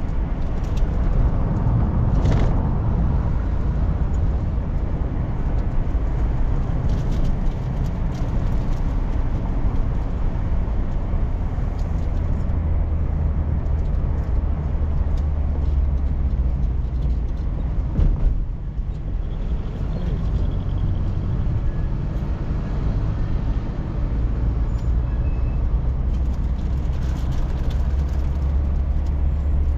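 Steady low rumble of a car's engine and road noise heard from inside the cabin while driving, with one short knock a little past the middle.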